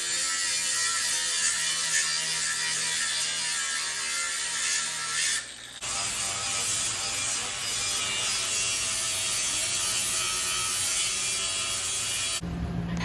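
Power tool cutting through a steel exhaust pipe, a steady harsh mechanical noise that breaks off briefly about five and a half seconds in, then runs on and stops shortly before the end as the section is cut free.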